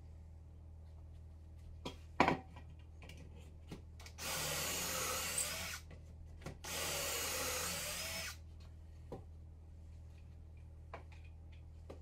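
A sharp knock about two seconds in, then a DeWalt cordless drill boring into a wooden board in two runs of about a second and a half each, with a short pause between.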